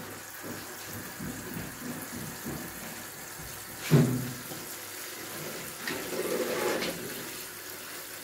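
Water running steadily from a handheld shower head into a plastic bucket in a bathtub, with one short, loud knock about four seconds in.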